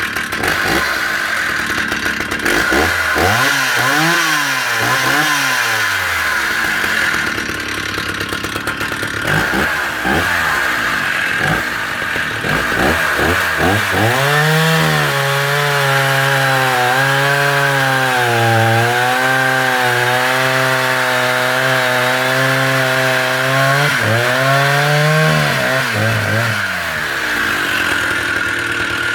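Vintage Stihl 045 AV 75cc two-stroke chainsaw running, revved up and down a few times, then held under steady load for about ten seconds as it cuts through a 14 to 15 inch larch log without bogging down. It revs free as it leaves the cut near the end and drops back toward idle.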